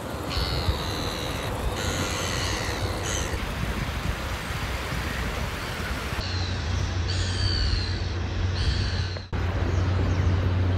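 Gulls calling, in two bouts of repeated calls: about a second in, and again just past the middle. A steady low rumble runs underneath.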